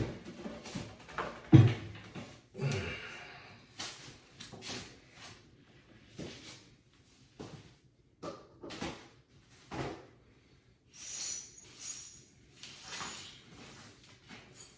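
Furniture boards being handled and fitted together: a series of knocks, clicks and short scrapes. One loud knock comes about a second and a half in.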